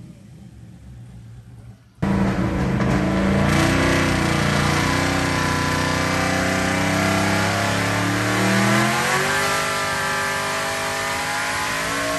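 Twin-turbocharged 427 cubic-inch Dart-block LS V8 of a 1961 Buick Skylark, heard from inside the cabin, making a wide-open-throttle pull on a hub dyno: the engine comes in loud about two seconds in and climbs in pitch as the revs rise toward about 6,700 rpm. Before that, a much quieter engine sound.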